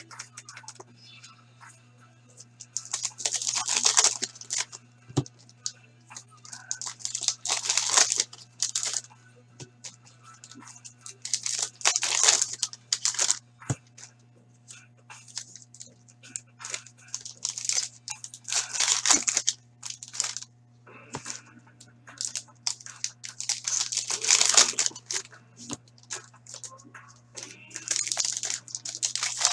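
Foil hockey card pack wrappers being torn open and crinkled by hand, one pack after another, in about six separate bursts of tearing and crackling.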